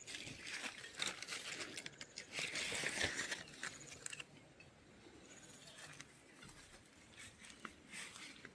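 Rustling and crackling of fig leaves and twigs, busiest and loudest in the first four seconds, then fainter and sparser.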